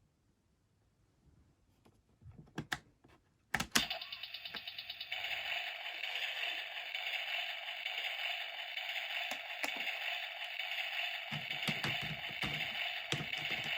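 A few faint clicks, then about three and a half seconds in a small mechanism starts abruptly and runs steadily with a fast rattling whir, typical of a small battery-powered toy appliance.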